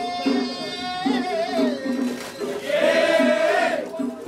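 Kiyari singer's solo voice singing a kiyari work song in long, wavering, drawn-out notes over a steady beat. It is the song that leads the bearers as the mikoshi is lifted overhead.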